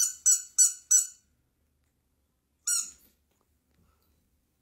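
Rubber squeaky dog toy squeezed by hand: four quick squeaks in the first second, then one more a little under three seconds in.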